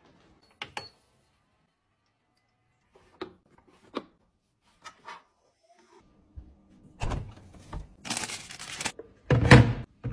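Scattered light clicks and knocks from household items being handled. Louder knocks come in the second half, then a brief rush of noise and two heavy thumps near the end.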